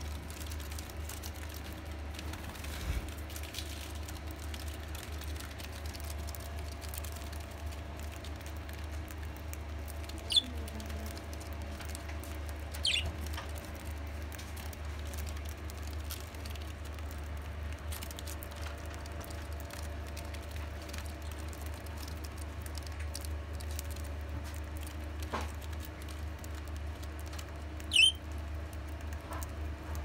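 Budgerigars pecking and husking millet seed from a palm, a dense patter of tiny clicks. Three short high budgie chirps stand out, about ten, thirteen and twenty-eight seconds in, over a steady low hum.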